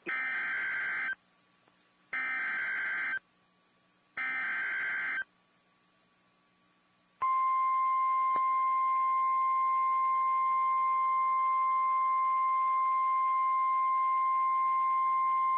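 Emergency Alert System SAME header on NOAA Weather Radio: three buzzy digital data bursts of about a second each, a second apart. About seven seconds in comes the steady single-tone weather radio warning alarm, sounding for a severe thunderstorm warning.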